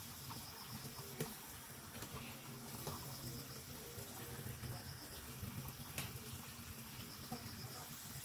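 Faint running water while fish and shrimp are being cleaned, with a few light clicks.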